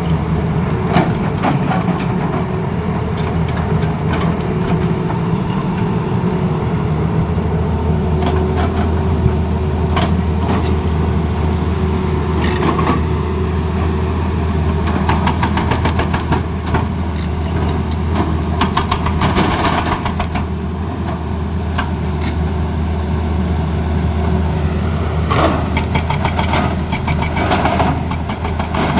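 Tata Hitachi Zaxis excavator's diesel engine running steadily, with clusters of sharp knocks and clanks on top.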